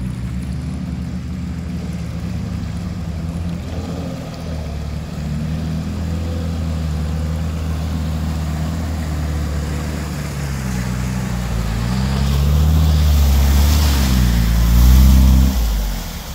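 Off-road 4x4 engine working under load, its pitch rising and falling as the throttle changes. Near the end it gets louder, with a rushing noise over it, then drops away sharply.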